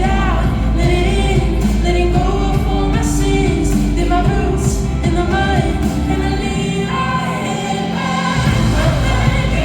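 Pop song with a female lead vocal over a full band. The deep bass drops out for about a second and a half near the end, then comes back in.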